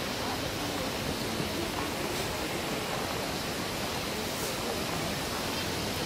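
Steady rushing of the Shirahige Waterfall and the river below, an even roar of falling water with no breaks.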